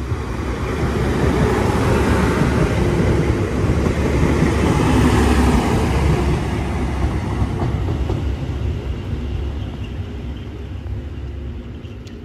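Class 185 diesel multiple unit passing through the station without stopping. Its running noise builds to a peak about five seconds in, then fades away.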